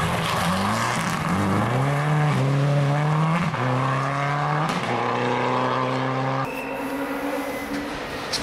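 Rally car engine accelerating hard and climbing in pitch, dropping back at each of several upshifts. About two-thirds through, the sound cuts to a quieter engine sound.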